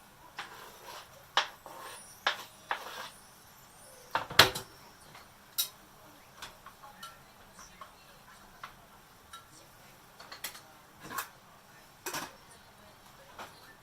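Kitchen utensils and dishes clinking and knocking at irregular intervals during cooking, the loudest knock a little over four seconds in.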